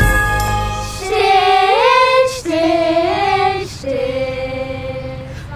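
A group of girls singing a Christmas carol together in three long-held phrases, starting about a second in, after the last notes of chiming bell music fade.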